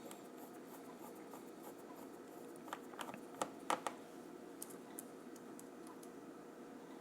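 Faint clicks and taps of a smartphone's small plastic parts being handled and pressed back into place during reassembly. A quick cluster of sharp clicks about three seconds in, with a few lighter taps after, over a steady low hiss.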